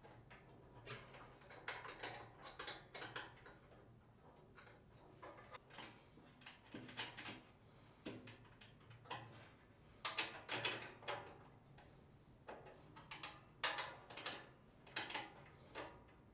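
Small metal wrench clicking and scraping against the bolts and steel bracket of a generator's front support stand as the bolts are tightened, in faint, irregular clusters of short ticks.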